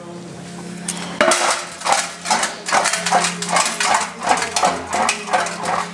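Rapid light metallic clinking and rattling, about three strikes a second, starting about a second in, over a steady low hum.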